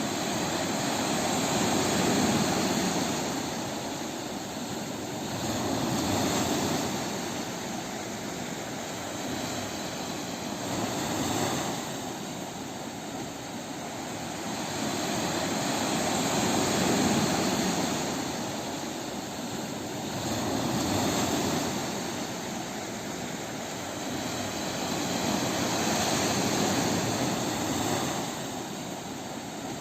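Ocean waves breaking on a beach: a continuous rushing surf that swells and falls back about every four to five seconds.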